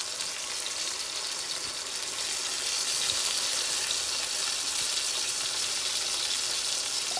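Chicken breast sizzling in hot oil in a nonstick frying pan, a steady frying hiss that grows slightly louder a few seconds in.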